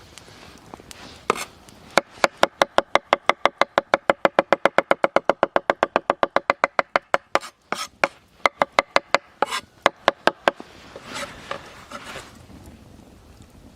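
A knife chopping quickly on a wooden cutting board: a fast, even run of knocks, about eight a second, then slower, uneven strokes and a little scraping near the end.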